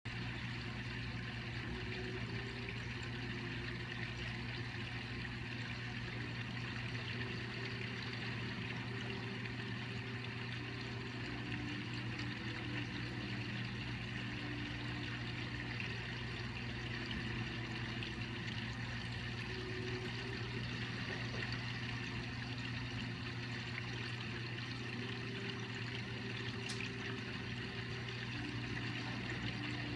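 Reef aquarium pumps and circulating water: a steady low hum under a hiss of moving water, with faint tones that step up and down in pitch every few seconds.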